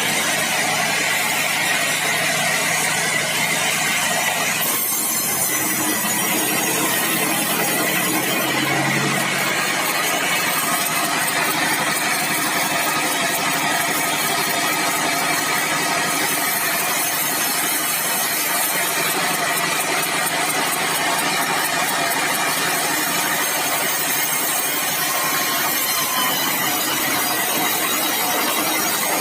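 Sawmill bandsaw running and cutting bengkirai hardwood: a loud, steady mechanical din that shifts in tone about four and a half seconds in.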